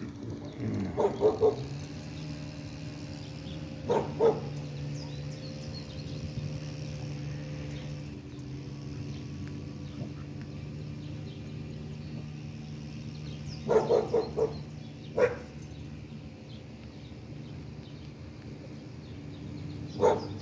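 Ducks quacking in short clusters of quick calls: a run of three about a second in, a pair at about four seconds, a run of four or so near fourteen seconds, then single calls near fifteen seconds and near the end.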